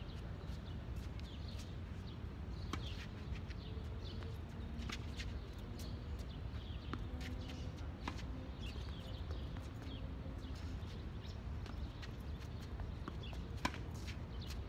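Tennis rally on a hard court: scattered sharp racket strikes and ball bounces, some loud and close, some faint from the far end, over a steady low background rumble. The loudest hit comes near the end.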